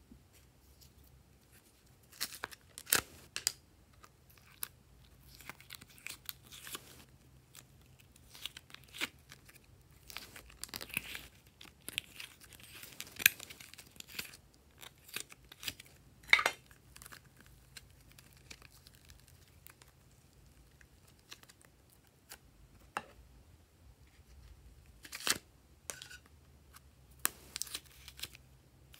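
Slime and foam being squeezed and pulled out of a thin plastic container by hand: irregular sticky crackles and pops with a few sharper clicks, and the plastic crinkling.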